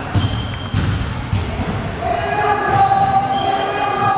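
Sounds of an indoor ball game: a few sharp thumps in the first second and a half, many short high squeaks, and a held voice-like call from about two seconds in, over a busy background of voices.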